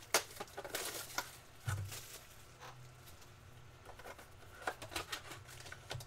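Light handling sounds of a cardboard trading card box being opened and its foil-wrapped pack taken out: scattered faint taps, clicks and rustles, with a soft knock a little under two seconds in.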